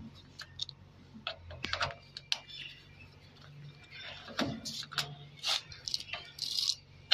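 Screwdriver working screws out of a gas fryer's sheet-steel front panel: scattered small metal clicks and a few short scrapes.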